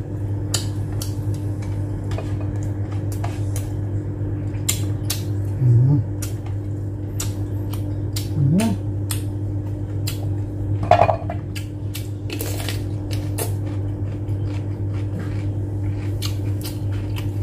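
Close-up eating sounds: many short sharp clicks of chewing and mouth noises, with fingers picking rice off a plate, over a steady low electrical hum. Brief low throaty vocal sounds come about six and eight and a half seconds in, and a louder one about eleven seconds in.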